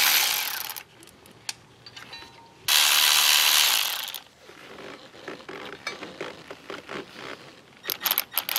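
Cordless electric ratchet spinning a 13 mm fastener loose, in two bursts of about a second each with a pause between. Softer clicks and light metal clinks of the socket and fastener follow, with a quick run of sharp clicks near the end.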